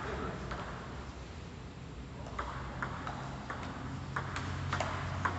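Table tennis rally: the ball clicking off the paddles and the tabletop in a run of sharp, irregular ticks, thicker from about two seconds in, over a steady low hum.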